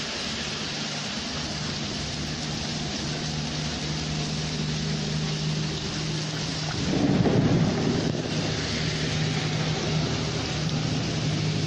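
Heavy rain mixed with hail pouring steadily, with a steady low hum beneath it. About seven seconds in a louder low rumble swells and fades over a second or so.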